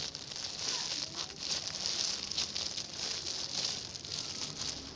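Steady crinkling and rustling close to the microphone as a soft foam unicorn squishy toy is handled and squeezed.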